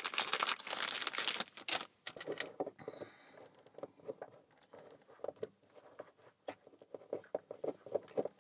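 Crinkly rustling for about two seconds, like a packet being handled, then a run of light irregular clicks and taps as thin padlock shims and small metal tools are handled.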